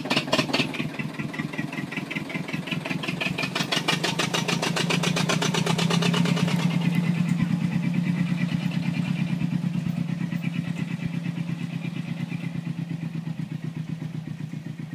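Narrow-gauge diesel locomotive engine running with a fast, even beat, sharpest at the start, growing louder to a peak about six seconds in and then slowly fading.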